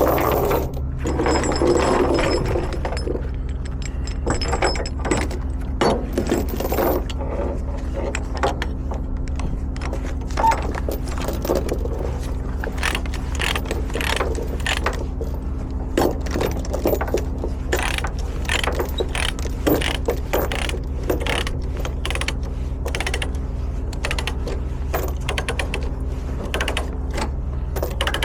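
Ratchet chain binder being cranked to tighten a tie-down chain: a long run of irregular clicks. A steady engine idle hums underneath.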